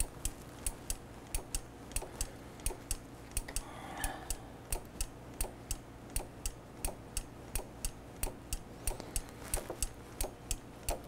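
Quick, steady series of light clicks, about three to four a second, as the brake is pumped to push out the four pistons of a motorcycle's front brake caliper against the pads.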